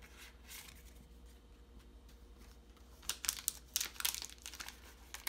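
Crinkling of a trading-card booster pack wrapper being handled and torn open, a quick run of sharp crackles starting about three seconds in.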